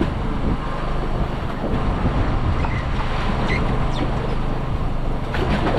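A boat engine runs with a steady low hum while seawater washes against the wooden hull.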